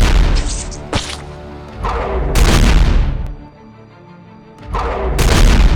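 Explosion-style boom sound effects, three heavy blasts with deep bass, with a short sharp crack about a second in, over background music.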